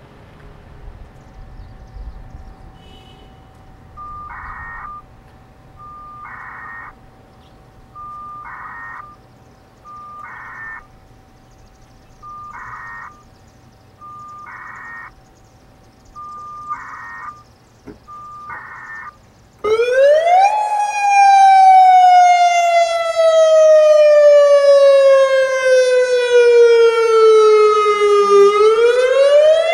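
A short, fairly quiet sound repeats about every two seconds for the first two-thirds. Then the Federal Signal Modulator 2008 electronic tornado siren switches on suddenly and loud, sounding its wail: one tone with strong overtones that slowly falls for about eight seconds, then climbs again near the end.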